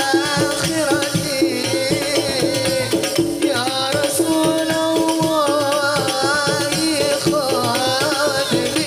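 Sholawat, an Islamic devotional song, sung with long wavering notes by male voices over a steady beat of hadrah frame drums.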